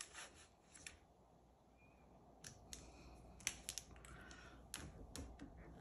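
Near silence with a handful of light clicks and taps, mostly in the second half: an acrylic quilting ruler and marking pen being handled and set down on a cutting mat over fabric.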